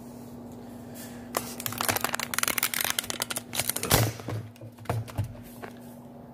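Handling noise from the phone camera as it is grabbed and swung about: a dense run of rapid clicks and rustles that starts about a second and a half in, peaks around four seconds and dies away near the end. A steady low hum runs underneath.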